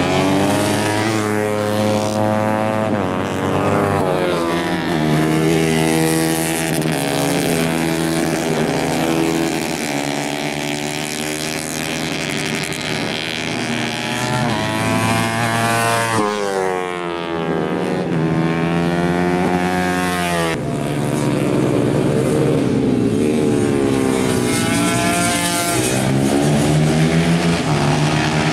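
Several racing motorcycles running hard on a circuit, their engines revving high. The pitch holds, then sweeps up and down as the bikes accelerate, brake and shift gears, with more than one bike heard at once.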